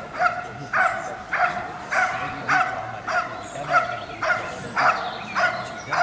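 Belgian Malinois barking steadily at a protection-training helper in a bite suit, about ten loud barks evenly spaced, a little under two a second. This is the dog guarding and barking at the helper rather than biting.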